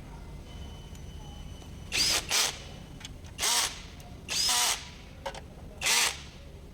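Handheld power tool run in five short bursts, each opening with a quick rising whine.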